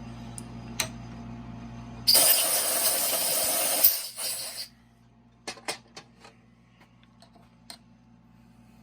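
Compressed-air blow gun hissing for about two and a half seconds, blowing drill chips out of a tapped hole in a motorcycle crankcase. A steady low hum before it, and a few light metallic clicks after it.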